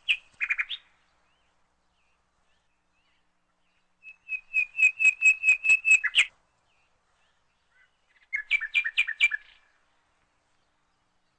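A bird chirping in three quick bursts of rapidly repeated high notes, with silences of a few seconds between them.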